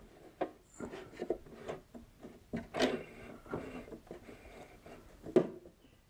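Irregular light clicks, knocks and rubbing as thick fabric is handled and positioned under a domestic sewing machine's presser foot. The loudest knocks come about three seconds in and again near the end.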